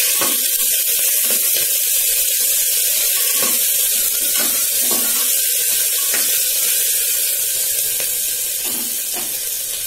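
Sliced onion and ginger-garlic paste sizzling in hot refined oil in a pressure cooker, with a metal spatula scraping and stirring now and then. The sizzle eases a little near the end.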